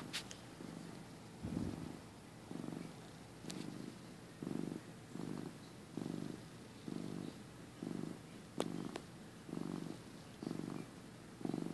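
Flame point Siamese cat purring steadily while being scratched around the ear, in low, even pulses about one a second as it breathes in and out. A few faint sharp clicks come through on top.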